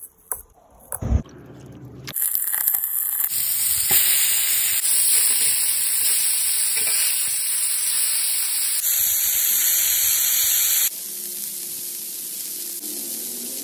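Beef smash-burger patties sizzling on a hot flat-top griddle: a loud, steady frying hiss that starts about two seconds in and drops to a softer sizzle near the end. A few soft knocks come before the sizzle starts.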